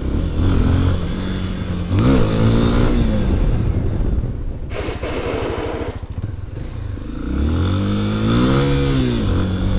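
Honda XRE 300 single-cylinder engine being revved up and eased off during a wheelie, the pitch climbing and falling twice, about two seconds in and again near the end.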